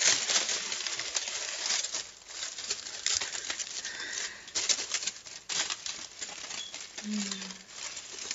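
Aluminium foil crinkling and crackling as hands crumple and shape a tinfoil hat, a dense run of crackles that is loudest at the start.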